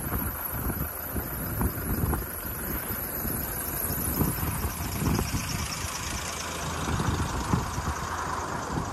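Wind gusting and buffeting the microphone in low, irregular rumbles, with road traffic noise swelling in the second half.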